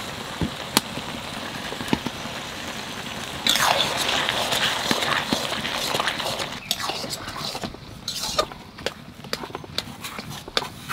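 Mixed-vegetable curry sizzling in an iron kadai over a wood fire as peas go in, then a spatula stirring and scraping through it from about three and a half seconds in, louder, with many clicks. Softer clicks and scrapes follow near the end.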